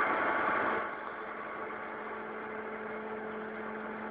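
Steady machine hum from the hydraulic tilting drive of a gas-fired tilting melting furnace, with a constant low tone. A louder rushing noise dies down about a second in, leaving the hum.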